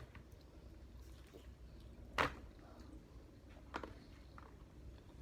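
Two sharp clicks from handling crab and utensils at the table, a strong one about two seconds in and a fainter one nearly two seconds later, over a faint low hum.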